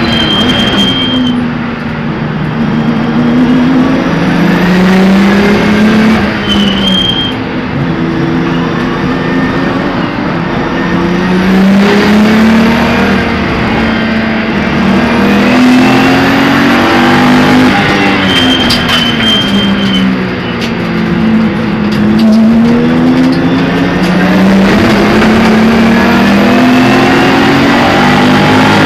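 Race car engine heard from inside the caged cockpit, its pitch climbing under full throttle and dropping back at each gear change, again and again around the lap. A brief steady high tone sounds three or four times over the engine.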